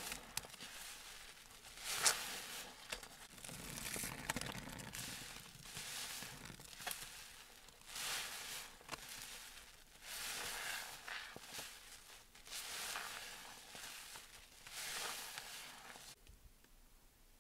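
A soap-soaked sponge squeezed and kneaded by gloved hands in thick suds, each squeeze a wet, crackly squelch of foam, about one every two seconds. The squeezing stops just before the end.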